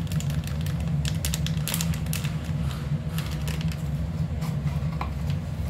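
Scattered light clicks and taps from handling in a kitchen, over a steady low hum.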